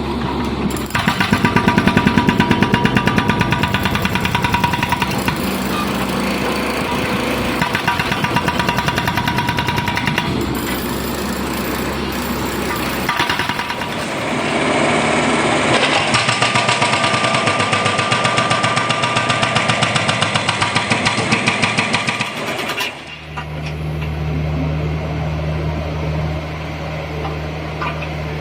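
Hydraulic breaker on a Kubota U50 mini excavator hammering in rapid blows over the running diesel engine, the sound changing abruptly several times. In the last few seconds a steady low engine drone is the loudest thing.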